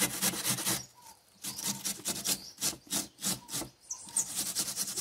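An onion being grated on a metal box grater over a wooden cutting board: quick, rhythmic rasping strokes, about four a second, with a short pause about a second in.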